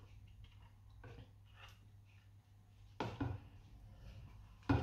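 Kitchen utensils handled between gratings: a metal box grater knocks against the colander and glass bowl twice, about three seconds in and again near the end, each knock with a brief ring, after a quiet stretch of faint small taps.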